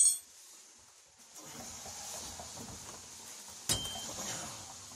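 Steel leaf-spring parts being worked into place by hand: a ringing metal clink at the start, a stretch of scraping and rustling, and one sharp metal knock a little before four seconds in, as the spring hangs up instead of seating.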